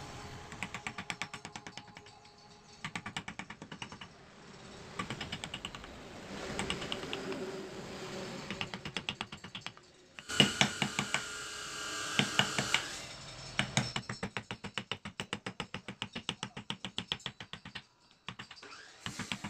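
Rapid light clicks in bursts of several a second from a small hand tool working the surface of a carved wooden panel. The clicks are loudest and densest for a few seconds around the middle.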